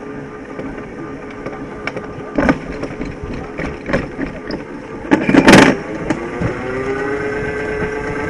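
Alpine coaster sled on its steel rails: clicking and rattling as it is carried up the lift, a loud burst of noise about five seconds in, then a steady wheel hum that slowly rises in pitch as the sled picks up speed downhill.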